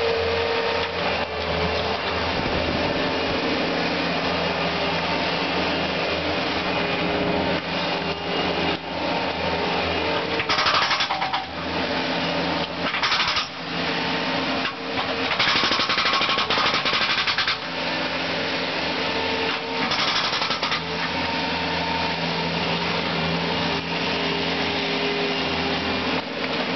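Concrete breaker hammering rapidly at concrete over a steady engine drone, with several louder stretches of hammering in the middle, the longest about two seconds.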